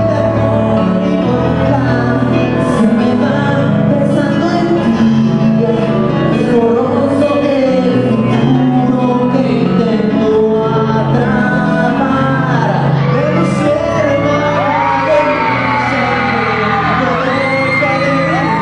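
A singer performing into a microphone over loud backing music through a PA, steady bass notes underneath and a voice that slides and wavers in pitch, most clearly in the second half.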